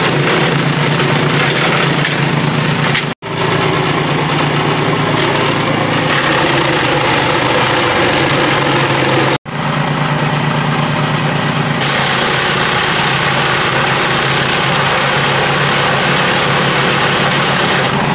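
Petrol engine of a Mighty Mac WC375 wood chipper running steadily, cutting out abruptly for an instant twice, about three seconds in and again about nine seconds in.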